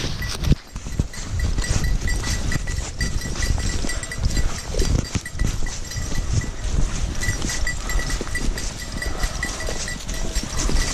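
A small bell on a hunting dog's collar jingling in a quick, uneven rhythm as the dog trots, over footsteps and rustling through dry leaf litter.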